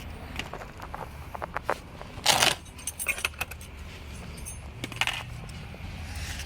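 Small metal brake parts and tools being handled: scattered light metallic clicks and clinks, with a louder rattling clatter about two seconds in and a shorter one near five seconds.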